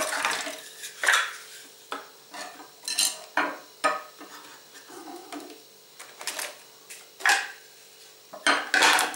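Knives being set down and shuffled on a stone countertop: irregular clacks and clinks of metal blades and wooden and plastic handles against the stone, about a dozen, the loudest about a second in and near the end.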